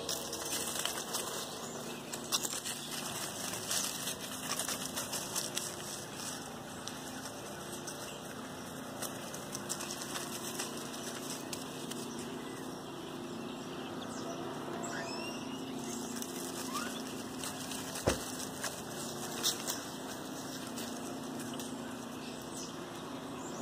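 Puppies scampering through dry fallen leaves and grass: a steady rustling with many small crackles, busiest in the first few seconds. A couple of short high rising chirps come past the middle.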